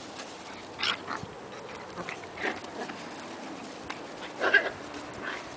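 Puppies giving a few short yips while playing, the loudest a little after four seconds in.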